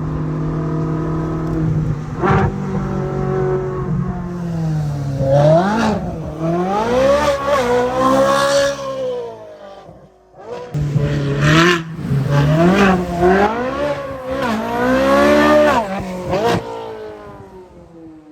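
Sports car engine running steadily, then revved hard again and again, its pitch climbing and dropping with each burst. It dies away briefly about ten seconds in, revs hard once more, and fades with a falling pitch near the end.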